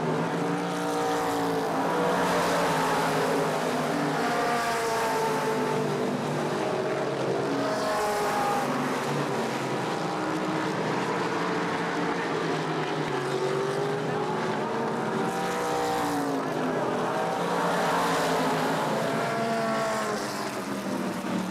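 Several late model stock cars racing on a short oval, their V8 engines overlapping and rising and falling in pitch as they accelerate and lift through the turns.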